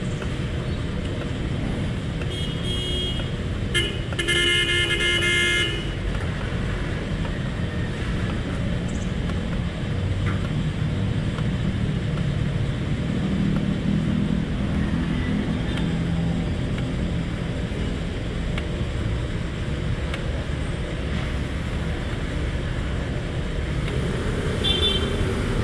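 A vehicle horn sounds, a short toot about two and a half seconds in and a longer honk about four seconds in, over a steady low rumble of vehicle traffic.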